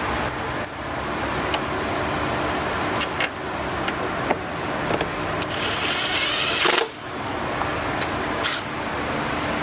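Cordless impact driver with a socket, run in a burst of rapid rattling hammering for just over a second about halfway through, driving a bolt into a motorcycle's plastic lower fairing. A shorter burst comes near the end, over a steady shop hum and a few small clicks.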